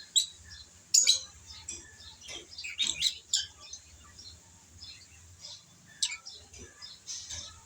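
Lovebirds chirping in short, scattered high calls, the loudest about a second in, around three seconds and about six seconds in.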